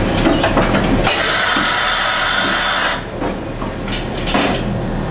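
Automatic tool change on a 1995 Leblond Makino MC86 horizontal machining center. A few clunks from the tool changer come first, then a loud hiss of air for about two seconds as the spindle releases the CAT-50 tool. A series of knocks follows as the changer works, over the steady hum of the running machine.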